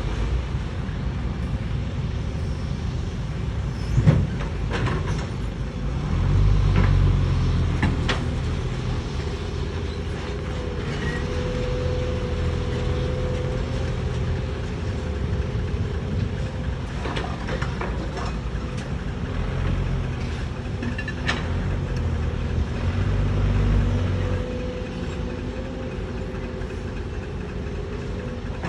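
Excavator working: the machine runs steadily with a whine, its low engine rumble swelling twice as it takes load, and several sharp metal clanks along the way.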